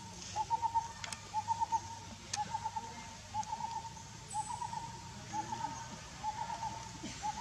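An animal call repeated over and over: short runs of three or four quick notes at one mid pitch, about once a second.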